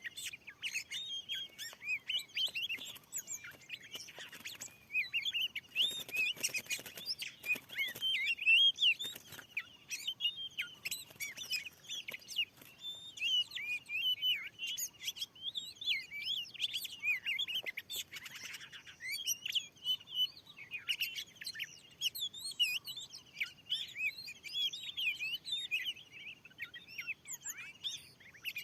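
Oriental magpie-robin (kacer) singing a continuous, rapid run of varied chirps and whistles, with a stretch of rustling noise a few seconds in.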